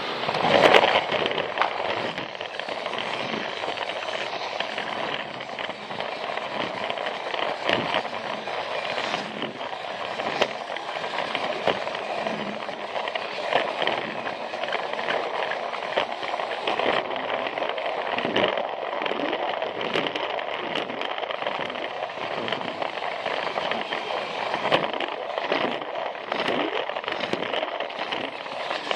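Battery-powered Plarail toy train running along plastic track: a steady motor-and-gear whir and rattle, with many small clicks as the wheels cross the track joints.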